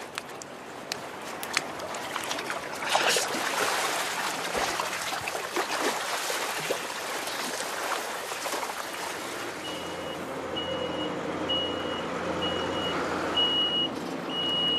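Water splashing and sloshing with scattered knocks as a caught shark is dragged out of the water onto the concrete quay edge. About ten seconds in, a lorry's reversing beeper starts: steady single-pitch beeps a little more than one a second, over its running engine.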